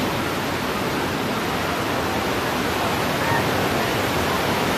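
Steady rush of cascading water from the Earthquake tram attraction's flood effect, poured through the mock subway station set.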